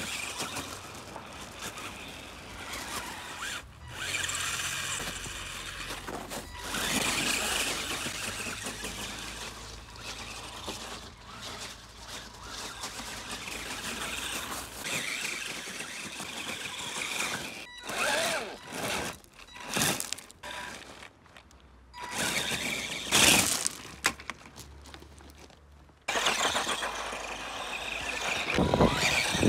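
Homemade RC buggy driving on gravel and snow: its drive motor whining as it surges on and off, with tyres churning through snow and crunching on stones. There are short pauses and a sudden restart near the end.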